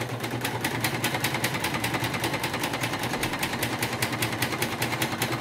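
Singer Quantum Stylist EM200 embroidery machine stitching a design: a rapid, even ticking of needle strokes over the steady hum of its motor. The stitching runs fairly smoothly.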